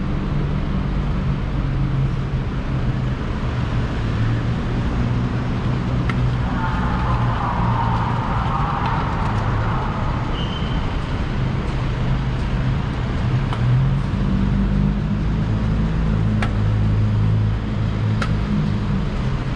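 Steady low mechanical rumble and hum, with faint voices briefly in the middle.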